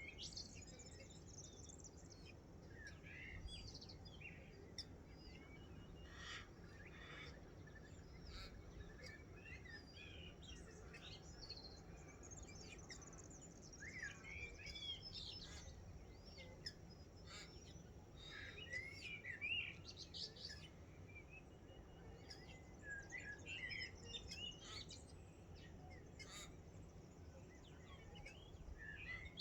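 Morning chorus of several wild birds: scattered short chirps and quick warbling phrases, some overlapping, over a faint low steady rumble.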